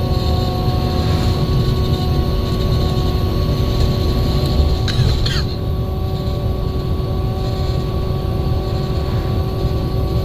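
Menarinibus Citymood 12 CNG city bus under way, heard from inside: a steady low rumble from its FPT Cursor 9 gas engine and the road, with several steady whines held above it. A short hiss comes about five seconds in.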